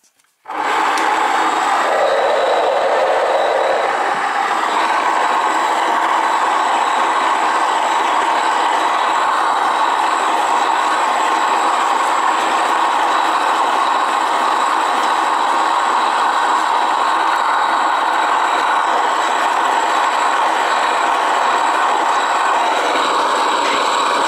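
Hawos electric grain mill switched on about half a second in, then running steadily as it grinds grain into flour: a loud, even grinding noise with a thin, steady high whine.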